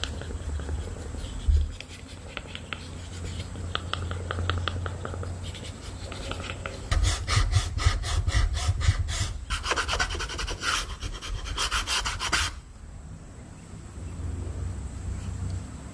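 Hand-tool rasping strokes on the craft materials, rubbing back and forth several times a second. They start faint, then grow louder and denser for about five seconds before stopping abruptly.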